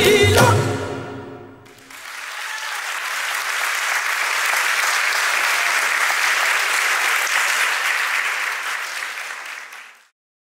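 Music with a steady beat ends about a second in, and an audience then applauds, the clapping dying away near the end.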